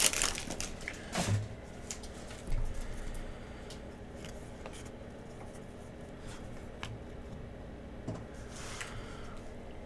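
Trading cards handled by hand: faint slides and light clicks as the cards are flipped through and laid on the table, with a couple of soft knocks in the first few seconds.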